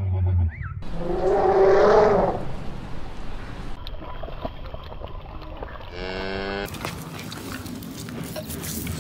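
Cattle mooing: one loud, long moo about a second in and a shorter moo around six seconds. Just before the first moo, a lion's roar dies away, and near the end there is a noisy, crackling stretch.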